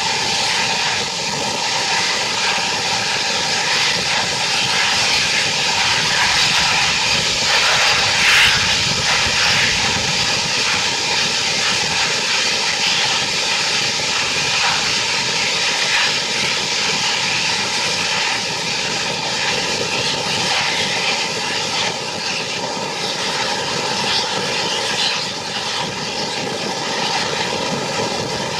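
Steam-hauled passenger train running at speed: a loud, steady roar of wheel, rail and engine noise with no clear exhaust beat.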